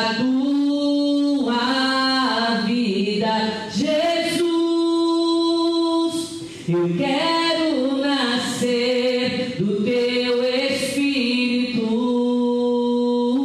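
A woman singing a slow worship song solo into a microphone with no instruments, holding long notes that slide from pitch to pitch.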